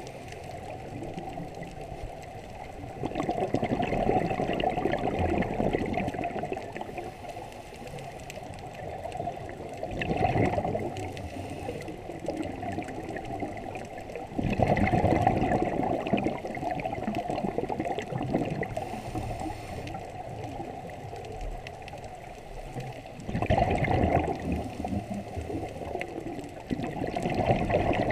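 Scuba diver breathing through a regulator underwater: several loud bursts of exhaled bubbles a few seconds apart, with quieter bubbling and hiss between them.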